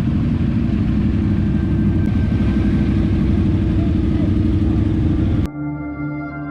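Motorcycle engines running loudly and steadily, cutting off suddenly near the end, when ambient music with singing-bowl tones takes over.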